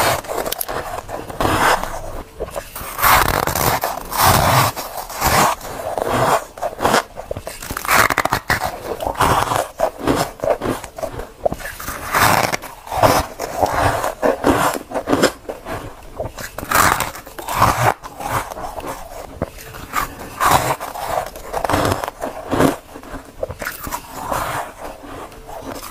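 Close-up crunching bites and chews of soft ice: chunks of powdery, compacted freezer frost. The crunches come irregularly, about one a second.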